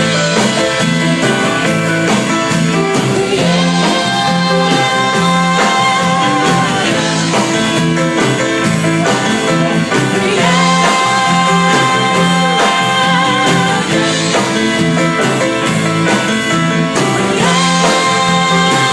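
Rock band playing an instrumental passage: long held, slightly wavering lead notes over a steady, repeating bass line and drums.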